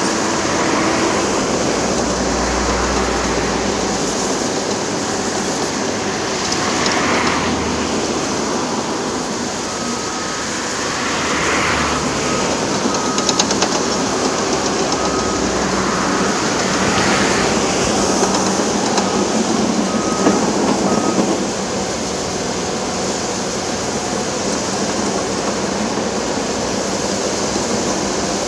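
Heavy construction machinery running steadily on an earthwork site, with the swell of passing motorway traffic a few times. A faint short beep repeats on and off through the middle.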